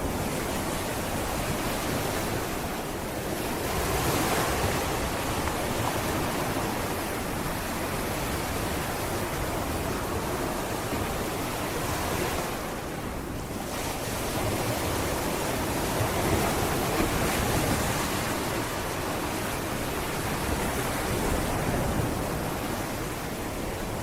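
Sea waves breaking and washing on a beach: a continuous surf wash that swells and eases every several seconds, with some wind on the microphone.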